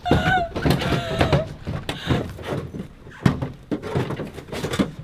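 A woman's high, wavering cries of distress, mixed with several knocks and thuds.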